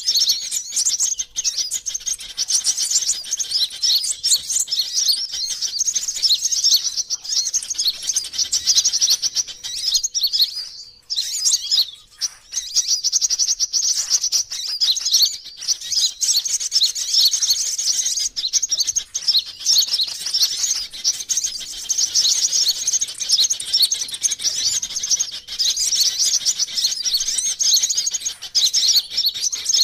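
Sunbird lure-call recording: dense, rapid high-pitched chirping and twittering that runs almost without pause, with a brief break about eleven seconds in.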